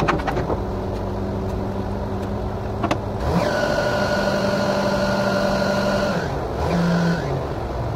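Engine of a truck-mounted borewell drilling rig running with a few metallic clinks at the start. It revs up about three seconds in, holds for about three seconds, drops back, then revs briefly again near the end.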